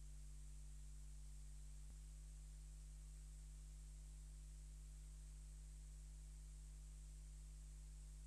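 Near silence: a steady low electrical hum with faint hiss, with one faint click about two seconds in. No helicopter is heard.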